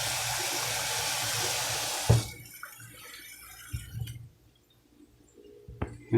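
Kitchen tap running steadily, then shut off about two seconds in with a knock, followed by a few faint knocks.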